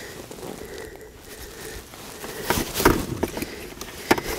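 Handling noise as a freshly landed crucian carp is worked in a mesh landing net: quiet at first, then rustling with several sharp knocks and clicks from a little past halfway.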